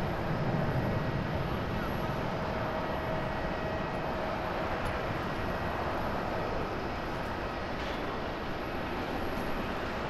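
Jet engines of a Boeing 737 airliner at takeoff power as it lifts off and climbs away: a steady rush of engine noise with a faint whine, easing slightly toward the end.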